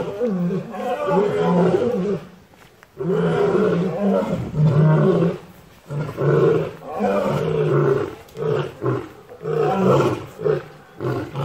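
Lion roaring in a long bout of repeated deep calls, the later ones shorter and more clipped.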